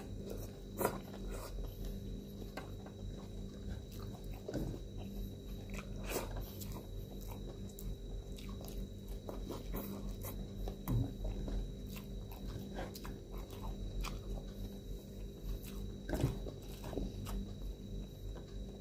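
Close-up mouth sounds of eating shrimp and rice by hand: chewing, lip smacks and small clicks at irregular moments, over a faint steady hum.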